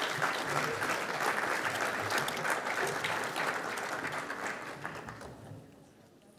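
Audience applauding, steady at first and then dying away over the last two seconds.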